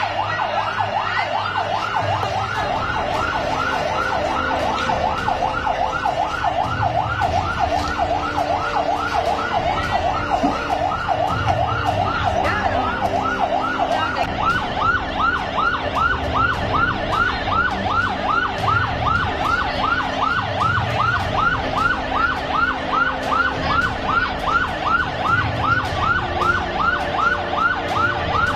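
Emergency vehicle siren sounding a fast yelp, rapid rising sweeps about three a second in a steady, unbroken rhythm.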